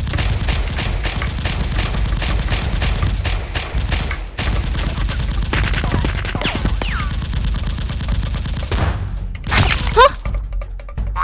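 Rapid gunfire, many shots in quick succession in a sustained exchange, strongest over the first few seconds, with a brief loud burst near the end.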